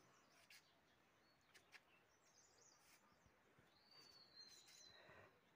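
Near silence with faint outdoor ambience: birds chirp softly here and there, and one thin whistled note falls slightly for about a second, about four seconds in.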